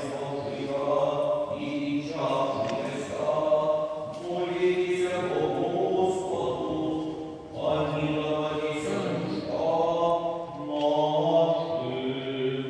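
Church choir singing an Orthodox liturgical chant in long held phrases, with short breaks between phrases about two and seven seconds in.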